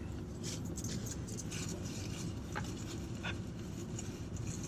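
Steady low hum inside a car, with faint rustling and small clicks as pastries are handled.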